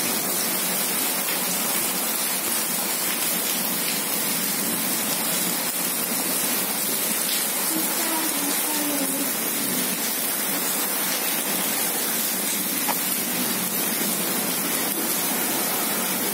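Heavy rain falling steadily, a dense, even hiss of water that does not let up.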